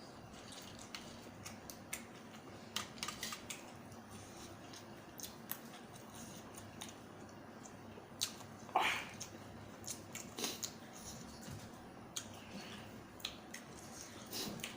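Eating sounds: scattered small clicks and ticks of utensils and chewing, with one brief louder sound a little under nine seconds in.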